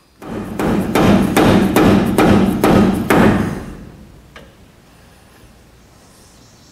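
A quick run of about a dozen hammer taps, three to four a second, driving the pinion seal into the snout of a GM 8.5 ten-bolt axle housing, fading out after about three and a half seconds.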